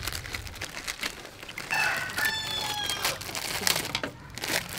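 A rooster crows once, a long call starting nearly two seconds in, over light wet handling noise and crinkling as raw octopus is rubbed clean by hand in a bowl of water.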